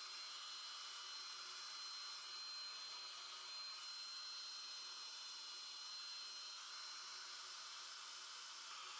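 Handheld hair dryer running steadily, blowing on hair: an even rushing hiss with a thin high-pitched whine.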